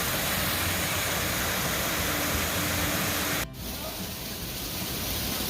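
Water rushing and splashing through a turning water wheel as a steady hiss. It cuts out for an instant about three and a half seconds in, then carries on a little quieter.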